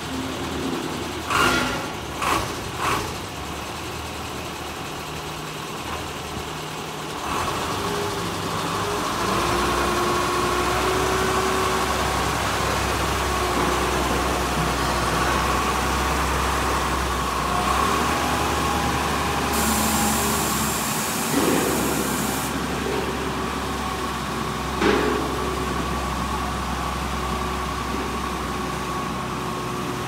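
Weichai diesel engine of a wheeled rotary drilling rig running as the rig drives off, growing louder about seven seconds in. There are a few clunks near the start, a hiss lasting about three seconds in the middle, and one knock later on.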